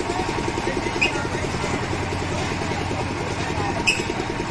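An engine running steadily with a fast, even chug. Two short, sharp squeaks cut in, about a second in and again near the end.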